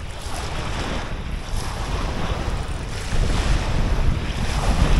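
Wind buffeting the microphone over small waves lapping in shallow water at the shoreline, the gusts growing louder about three seconds in.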